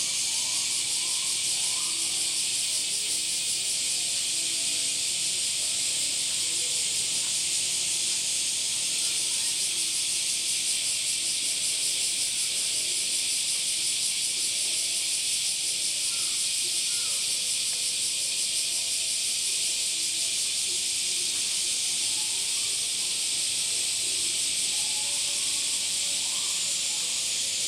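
Chorus of summer cicadas: a steady, dense, high-pitched buzzing hiss that does not let up.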